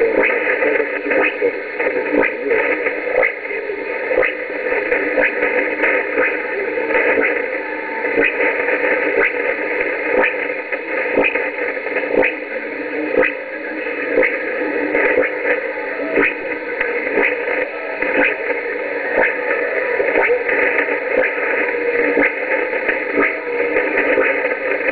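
Shortwave radio receiver tuned to 4865 kHz, picking up a weak, distant AM broadcast from Radio Logos in Santa Cruz, Bolivia. The signal is mostly hiss, with frequent static crackles and faint steady tones, and any programme audio barely comes through.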